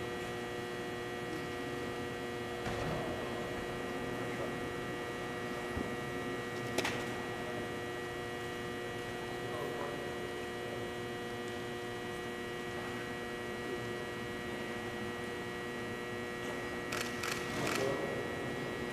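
Steady hum made of several fixed tones, the room tone of a large indoor practice hall. A single sharp click comes about seven seconds in, and a few more come near the end.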